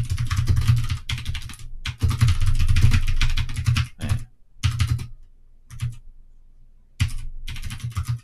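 Fast typing on a computer keyboard, a quick clatter of keystrokes in runs that thin out to a couple of short bursts for about three seconds in the middle before picking up again.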